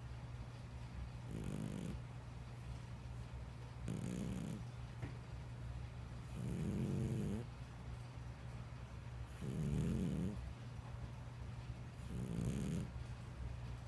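Slow, regular snoring: five snores about two and a half to three seconds apart, over a steady low hum.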